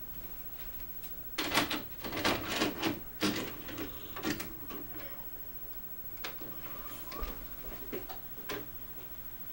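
A quick run of knocks and clatter, then a few scattered single clicks, over a steady low electrical hum.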